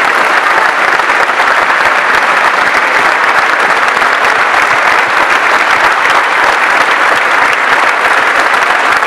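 A large crowd applauding, with steady, dense clapping throughout.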